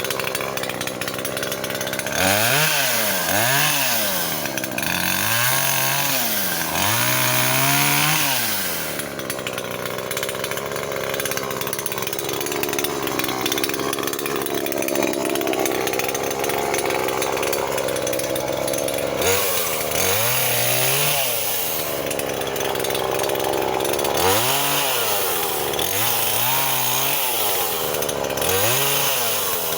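Two-stroke chainsaw cutting firewood, its engine revved up and down in short repeated bursts. In the middle comes a longer steady run where the pitch sags, as under load in the wood.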